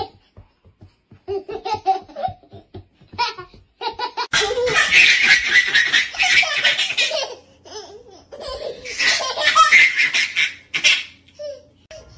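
Babies laughing: first a baby's short, quick bursts of giggling, then a toddler's loud, high-pitched belly laughter in two long bouts.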